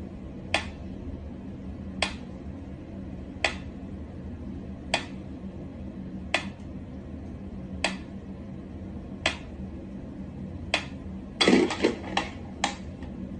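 Pyramid-shaped mechanical metronome ticking slowly and evenly, one sharp tick about every second and a half, over a faint low hum. Near the end a quick run of louder clicks and knocks breaks in.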